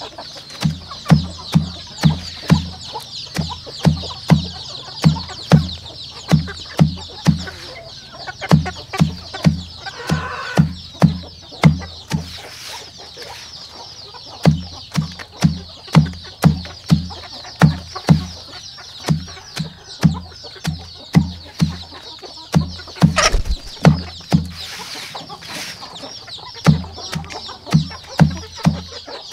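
Many young chicks peeping continuously in a dense, high-pitched chorus, over background music with a steady low beat of about two to three thumps a second that drops out briefly twice.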